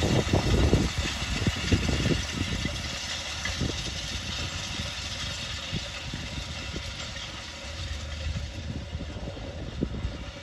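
A distant tractor engine drones steadily as it tows a wide cultivator-roller across a tilled field, with gusty low rumbling that is loudest in the first couple of seconds and eases off afterwards.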